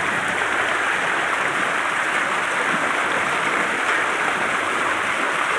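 Pumped well water gushing steadily from an outlet pipe and splashing into a shallow channel.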